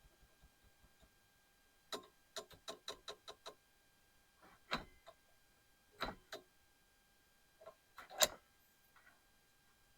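A quick run of light clicks, then three louder single knocks, the last the loudest, as parts are handled and set down.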